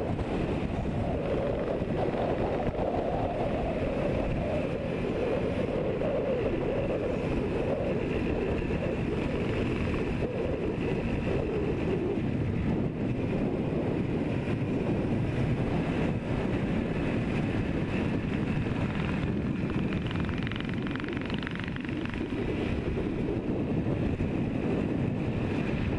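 Yamaha RD400's air-cooled two-stroke parallel-twin engine running steadily at cruising speed, heard from the rider's chin-mounted helmet camera.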